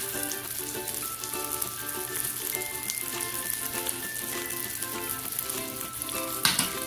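Ground pork patties sizzling steadily in hot oil in a nonstick frying pan, with a single sharp knock near the end.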